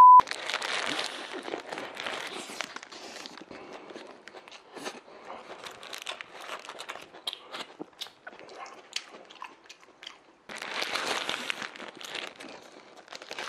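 Close-miked eating: bites into a Subway sandwich, chewing and crunching, with the crinkle of its paper wrapper, loudest near the start and again about ten seconds in. A brief steady beep tone sounds at the very start.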